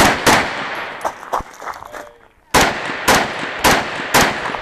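Semi-automatic rifle firing in a match stage: two quick shots, a few fainter cracks, a short pause, then four shots about half a second apart.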